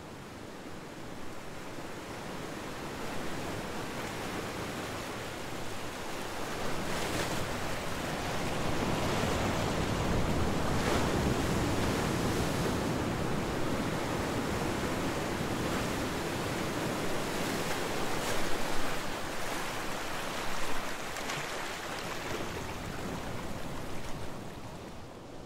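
A steady rushing noise like surf or wind that builds over the first ten seconds, holds with a few brief swells, and fades out at the very end.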